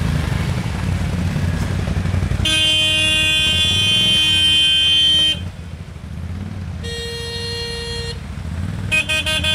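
ATV engines running low. About two and a half seconds in, a vehicle horn sounds for about three seconds. A second horn at a different pitch follows for over a second, and quick repeated toots start near the end.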